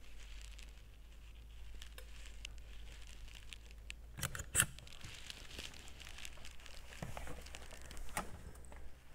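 Faint rustling and scattered light clicks and taps from hands working around the oil filter and drain tube in an engine compartment. The sharpest are a quick pair of clicks a little past four seconds in. A steady low hum runs underneath.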